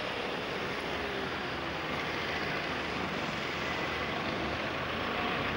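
Steady outdoor background noise, an even low rumble and hiss with no distinct events.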